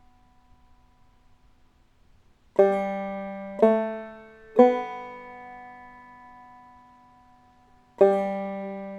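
Five-string banjo playing three single lead-in notes about a second apart, each a step higher: open third string, third string at the second fret, then open second string, all left to ring. Near the end the first note is plucked again to start the phrase over.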